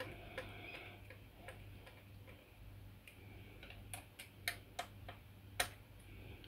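Faint, irregular clicks of a small hand screwdriver turning a screw into a model's reactor platform part while the part is handled, the sharpest click about five and a half seconds in.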